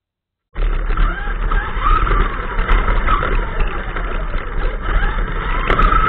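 Wltoys K939 RC car with a 3656 4000 kV brushless motor on an 11.1 V LiPo, heard from its onboard camera: the motor whine rising and falling with the throttle over rough tyre and drivetrain noise as it drives over pavement. The sound cuts in about half a second in.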